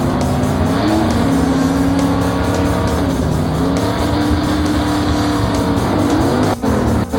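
Cartoon vehicle engine sound effect, the engine revving up about a second in and then running at a held pitch, over background music, with a couple of short breaks near the end.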